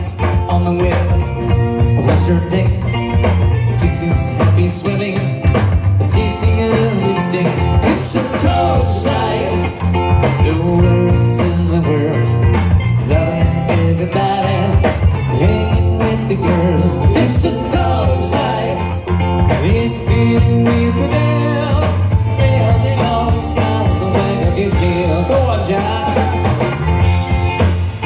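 Live band playing a trop rock song: steel pan, electric guitars and drum kit over a steady beat.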